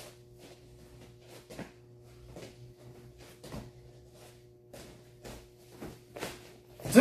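Quick, sharp swishes and snaps of a martial-arts uniform, with feet landing and turning on a padded mat, as a fast hand-and-foot form is performed: about ten sharp sounds at uneven spacing over a steady low room hum. The loudest, a short sharp burst, comes right at the end with a kick.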